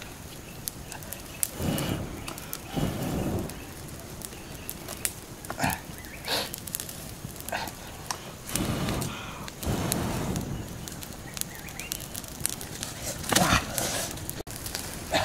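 Open wood campfire crackling, with many scattered sharp snaps. A few louder short noises lasting up to about a second are mixed in, the loudest near the end.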